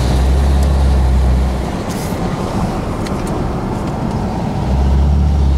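Car's road noise heard from inside the cabin while driving: a steady deep rumble with tyre hiss. The low rumble drops back for a few seconds in the middle, then returns.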